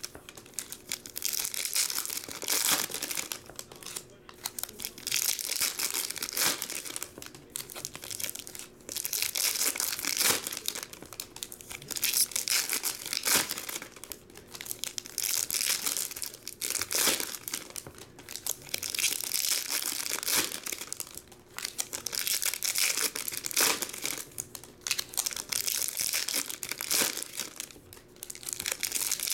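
Foil wrappers of 2021 Topps Pro Debut baseball card packs crinkling and tearing as packs are ripped open one after another. The crackle comes in bursts that swell and die away every few seconds.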